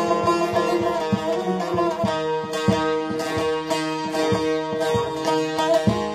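Instrumental Turkish folk music: a plucked bağlama melody with held notes over a steady low beat about twice a second.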